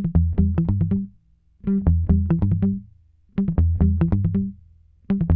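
Background music: a short riff of quick, sharp notes over low bass notes, repeated about every second and a half with brief pauses in between.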